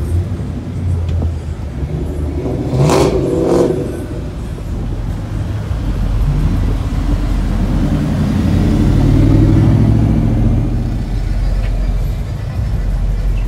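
Car engines running and revving, with two sharp bangs about half a second apart around three seconds in. An engine then swells louder, rising and falling in pitch for several seconds.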